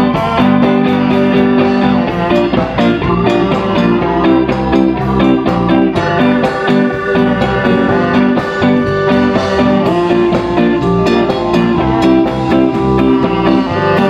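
Live band music without vocals: saxophone playing long held notes over electric guitar, bass guitar and a drum kit keeping a steady beat.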